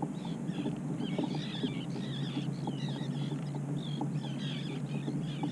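A flock of seabirds calling over the water, many short wavering high chirps overlapping throughout, from birds feeding on a surface feeding frenzy. A steady low hum runs underneath, with a few faint clicks.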